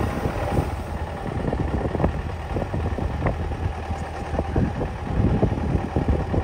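MTZ-82 tractor's four-cylinder diesel engine running at low revs as the tractor drives slowly, with irregular clanks and knocks from the freshly assembled disc harrow mounted on its rear hitch.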